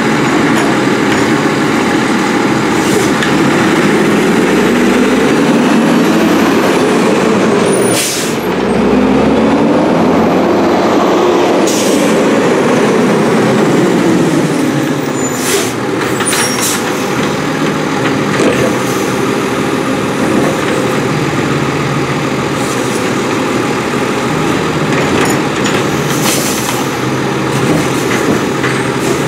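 McNeilus Autoreach side-loader garbage truck, its diesel engine revving up and down repeatedly with a growl as the automated arm cycles. There are several sharp bangs from carts being dumped and set back down.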